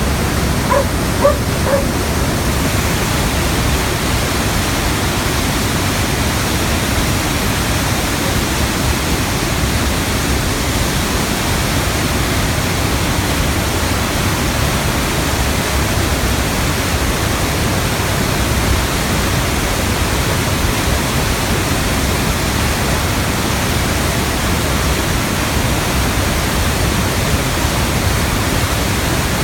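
Waterfall: a steady, loud rush of falling water. Three brief pitched chirps sound about a second in.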